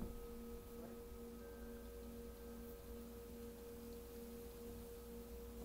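Quiet meditation drone of several sustained pure tones, the lowest pulsing slowly, with a fainter higher tone joining about a second and a half in.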